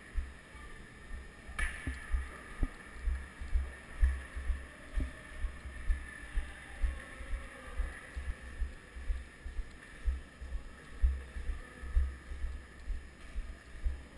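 Footsteps of the person wearing a helmet-mounted camera, heard as dull low thuds in a steady walking rhythm, with one sharper knock about one and a half seconds in.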